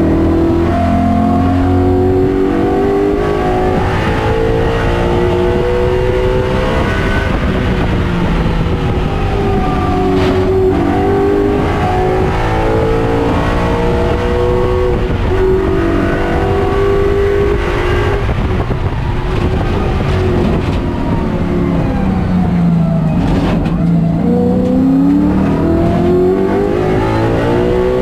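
Ford Mustang race car's Coyote V8, heard from inside the cockpit, running hard at full throttle. Its pitch climbs and steps through the gears, drops as it eases off and downshifts about ten seconds in and again just after twenty seconds, then climbs once more.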